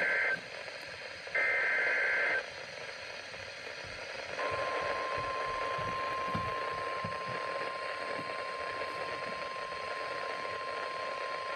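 NOAA Weather Radio emergency alert over a radio receiver: a SAME digital header burst, a harsh warbling data screech, ends just after the start, and another follows about a second and a half in. After a pause of static hiss, the steady 1050 Hz Warning Alarm Tone comes on about four seconds in and holds, signalling that a warning follows.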